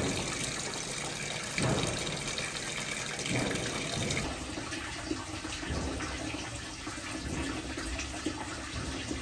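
Wall tap running, its stream splashing steadily into a plastic basin.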